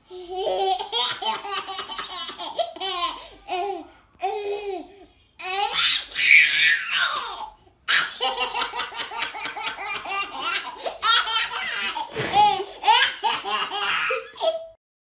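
A toddler laughing hard in long runs of rapid belly laughs, broken by short pauses, with a louder shrieking laugh about six seconds in.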